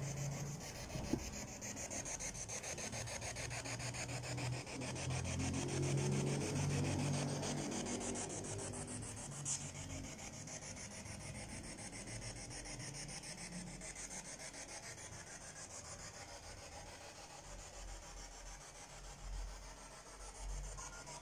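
Steady hiss of static from a handheld spirit box, with a faint, muffled voice-like murmur in the middle stretch.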